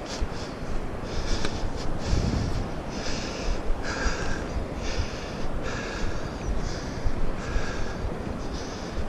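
A hiker's heavy breathing, quick breaths in and out repeating about once a second, over a steady low rumble on the microphone.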